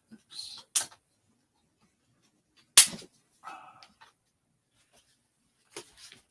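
A few short knocks and scrapes of a large painting board being handled and seated on a studio easel, with one sharp clack a little under three seconds in, the loudest sound, followed by a softer scrape and a light knock near the end.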